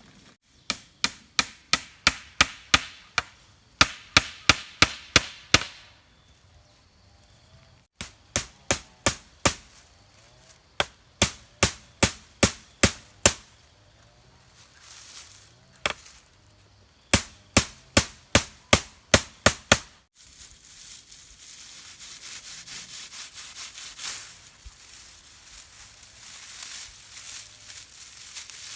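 Rapid chopping strokes, about three or four a second, in several runs with short pauses between them. About twenty seconds in they stop and give way to a steady scraping.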